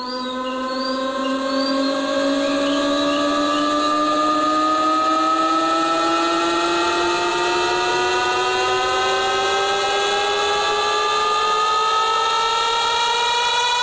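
Electronic riser sound effect from a DJ sound-check track: one buzzy tone climbing slowly and steadily, about an octave, over a steady hiss. It fades in over the first two seconds.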